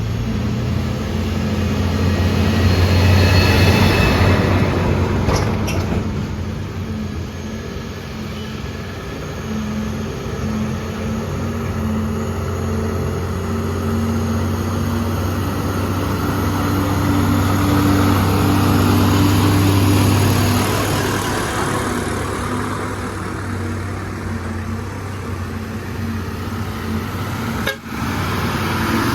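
Truck engine running hard under load on a climb, a steady low engine note that swells and eases twice, with a brief dip in level near the end.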